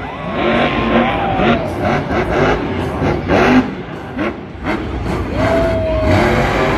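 Monster truck engines revving and running in an arena, with the pitch rising and falling repeatedly.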